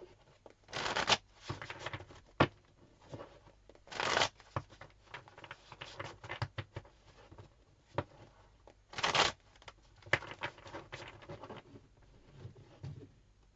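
Tarot cards being shuffled by hand, with three louder riffles about 1, 4 and 9 seconds in and short taps and rustles of cards between them.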